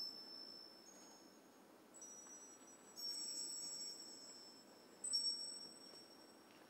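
Sparse, very high chime-like tones in a contemporary ballet score: a new note sounds about every second or two, each ringing on and slowly fading, sometimes two or three together, the loudest about three and five seconds in. Quiet.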